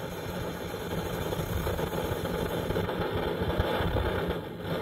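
Coleman Exponent Denali liquid-fuel backpacking stove burning with a steady rushing roar and a low flutter, just after its fuel valve is opened on a primed burner. It dips briefly near the end.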